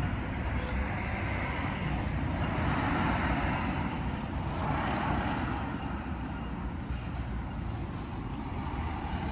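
City street traffic: cars passing on the road over a steady low rumble, swelling twice as vehicles go by.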